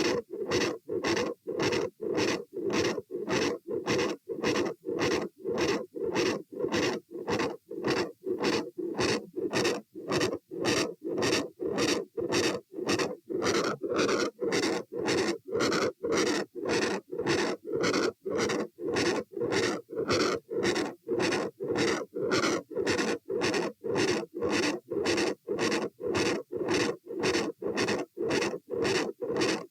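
A heartbeat heard through a stethoscope: a fast, regular beat over a steady whooshing that carries on between the beats, which the uploader labels a continuous murmur.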